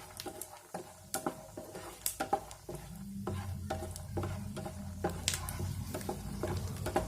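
Peanuts frying in oil in a kadai on a low flame, stirred with a spatula: scattered scrapes and clicks over a light sizzle. A steady low hum comes in about three seconds in.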